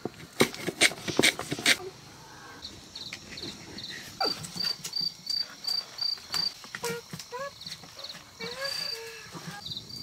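Outdoor animal sounds: a few sharp knocks in the first two seconds, then a high, even chirp repeated about three times a second, with a few short rising calls near the end.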